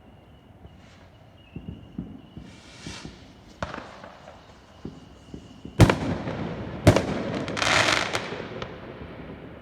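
Fireworks going off: a hiss a little under three seconds in, then two sharp bangs about a second apart, the second followed by a crackling burst that fades.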